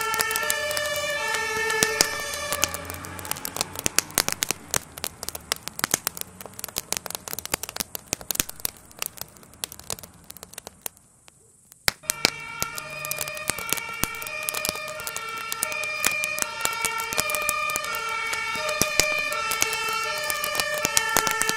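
Emergency vehicle's two-tone siren, switching back and forth between a low and a high tone, over dense crackling and popping from a burning wooden garden shed. The siren stops about three seconds in and the crackling fades nearly to silence. The siren then returns suddenly about twelve seconds in.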